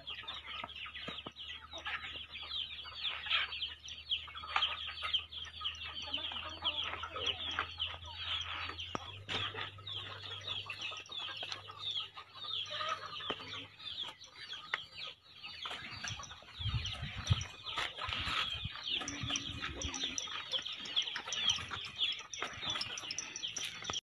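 A dense, continuous chorus of bird chirps and clucking calls on a farm. A couple of low bumps come about two-thirds of the way in.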